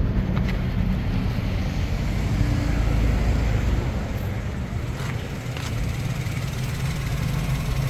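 Toyota Wigo engine idling steadily after its injector #3 misfire was repaired, running evenly.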